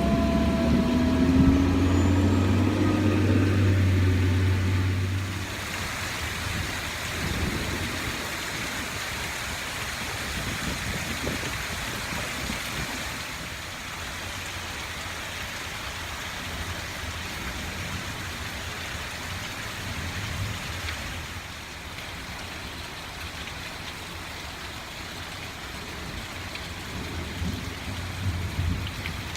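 Heavy rain pouring down steadily. A low rumble and a rising hum stand out over it for the first five seconds or so, then die away.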